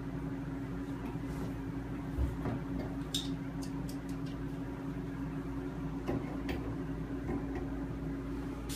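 Light clicks and taps of a plumbing fitting being handled and threaded onto a copper pipe, a few scattered ticks over a steady low hum.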